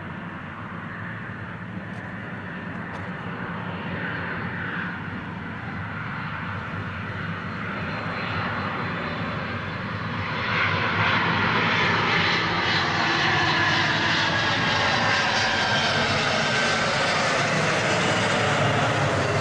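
Airbus A300 freighter's twin jet engines on final approach, growing steadily louder as the aircraft closes in. About ten seconds in the noise swells sharply, and a high engine whine slides down in pitch as the airliner passes close by.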